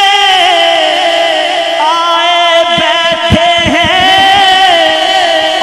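Voices singing a naat, an Urdu devotional chant, in long held wordless notes that waver in pitch. The main line slides down in the first second, a higher voice joins about two seconds in, and a few soft low thumps come around the middle.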